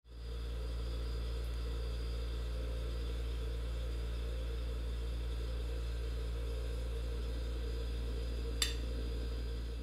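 A steady low hum, with a single sharp clink about nine seconds in as a metal fork cutting into a slice of cheesecake touches the plate.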